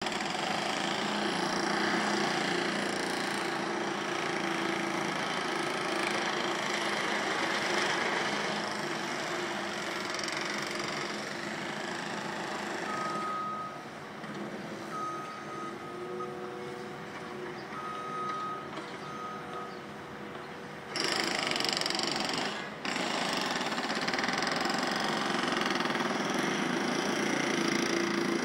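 Steady, loud mechanical din from construction machinery. About halfway through it drops away, and a construction vehicle's reversing alarm beeps several times, in short uneven pulses. The din then cuts back in suddenly.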